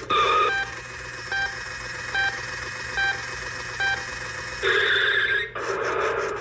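Electronic sounds from a Road Rippers toy PT Cruiser's small speaker: a short loud burst, then five short beeps about 0.8 seconds apart, then louder electronic sound again near the end.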